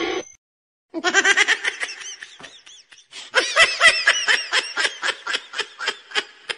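A person laughing in a long run of quick repeated bursts, starting about a second in, breaking briefly near the middle and trailing off near the end.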